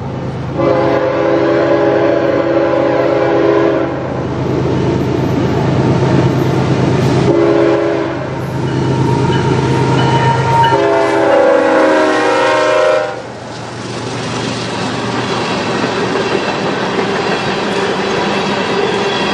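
Diesel freight locomotive approaching and sounding its multi-note air horn: a long blast, a short one about seven seconds in, and another long blast ending about thirteen seconds in, over the engine's steady drone. It then rolls by with the train's wheels clacking and rumbling over the rails.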